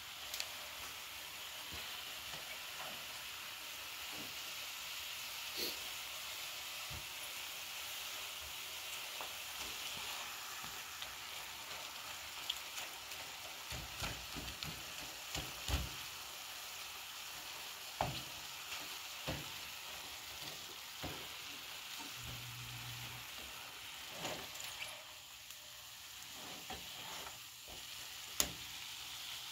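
Ground beef patties, frozen before cooking, sizzling steadily in a metal frying pan. Scattered clicks and scrapes of a spatula against the pan as the softened meat is broken apart.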